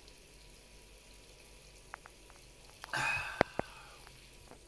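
A wine glass set down on a cloth-covered table: two sharp knocks about three and a half seconds in, with a short breathy sound just before them, after a quiet start with a few faint clicks.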